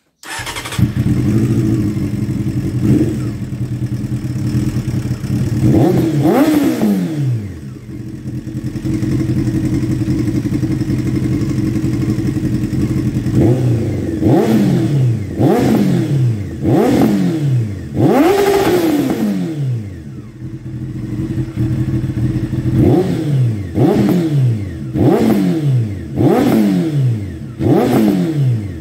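Honda CBR600F PC25's inline-four engine running through a homemade slip-on muffler: idling, then revved in short, sharp throttle blips that rise and fall quickly, in two runs of about six, with a longer rev in between.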